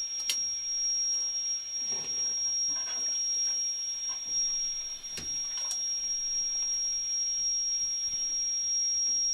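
A steady high-pitched whine over a low hiss, with a few sharp knocks and taps as dough is worked in a metal basin.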